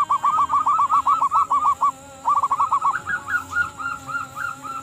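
Zebra dove (perkutut) cooing: a rapid run of short, arched coo notes, about eight a second, that breaks off briefly about two seconds in, then resumes as a higher, fainter run of notes toward the end.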